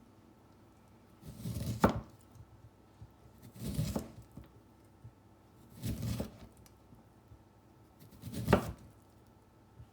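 A knife slicing through a lemon four times at an unhurried pace, about two seconds apart. Each stroke is a short juicy cut through the peel and flesh that ends in a sharp knock as the blade meets the cutting board.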